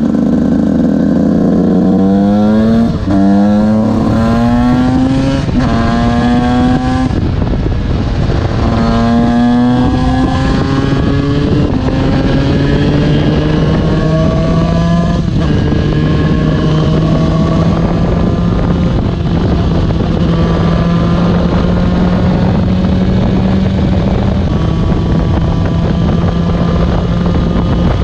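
Yamaha YZ125 two-stroke single-cylinder engine accelerating through the gears: the revs climb and drop back at each upshift, about five times in the first fifteen seconds, then hold steadier as the bike cruises.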